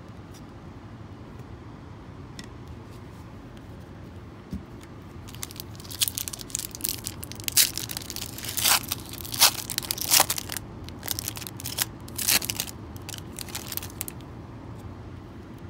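A foil trading-card pack wrapper being torn open and crinkled by hand: a run of sharp crackling rips that starts about five seconds in and lasts around eight seconds.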